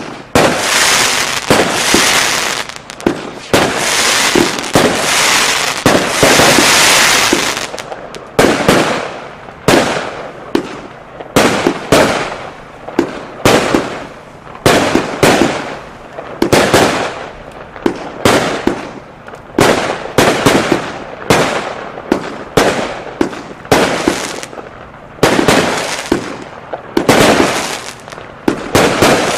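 A 284-shot, 25 mm consumer firework cake ('Adventure Time') firing. The first seven seconds or so are a dense barrage of rapid shots and bursts. After that come separate sharp shots and bursts roughly one to two a second, with a couple of denser volleys near the end.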